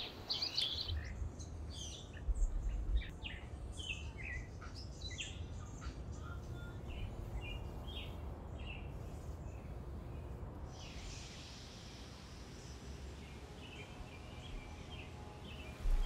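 Small songbirds chirping: many short calls in the first ten seconds, thinning out after that, over a low steady background rumble.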